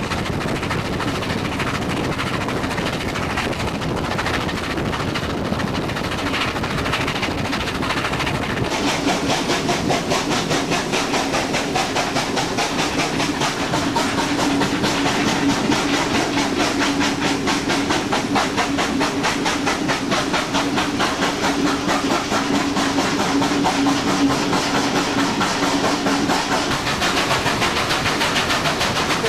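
Steam train running, heard from aboard: steady hiss and running noise with a regular rhythm of beats and wheels on the rails, working up a grade. About nine seconds in the sound turns sharper and more rhythmic, and a steady droning tone runs through the middle part.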